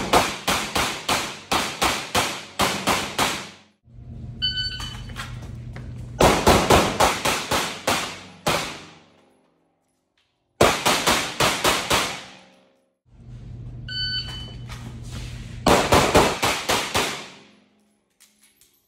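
Handgun fired in rapid strings of roughly a dozen shots each, four strings in all, echoing off the walls of an indoor range. A short electronic beep, the shot timer's start signal, comes before some of the strings.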